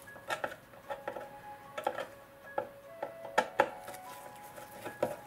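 Long-shaft screwdriver working a screw out of a clock movement's mounting in a wooden case: scattered light metallic clicks and taps as the loosened screw comes free and is fished out by hand. Faint background music underneath.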